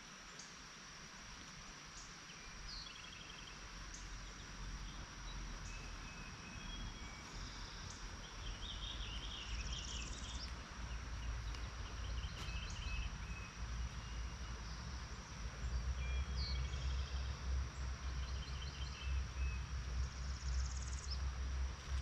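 A steady high-pitched insect drone with birds singing at intervals, over a low rumble that grows louder in the second half.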